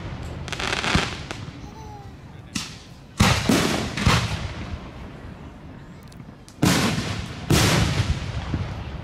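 Aerial fireworks shells bursting overhead: a series of sudden bangs, each trailing off over a second or so, with several in quick succession about three to four seconds in, a short lull, then two more near the end.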